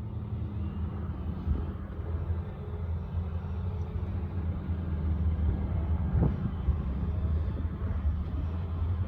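Heavy diesel machinery running with a steady low rumble that slowly grows louder.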